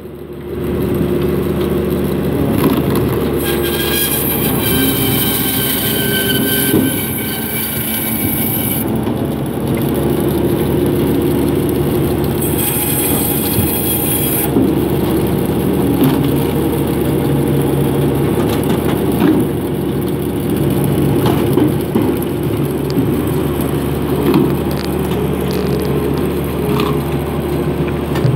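A tractor engine running steadily alongside a vertical band saw, with the saw blade cutting through log wood in two spells: a high whine from about three to nine seconds in, then a shorter high hiss around halfway.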